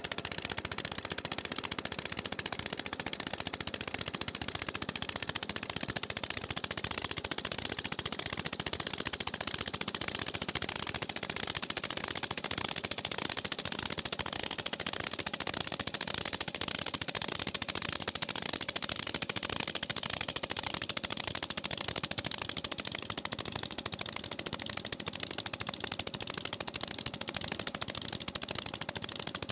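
A river passenger boat's diesel engine running steadily, with a fast, even knocking beat.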